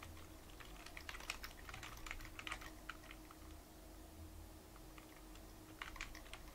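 Computer keyboard typing: two bursts of quick keystrokes, a longer run in the first half and a short one near the end.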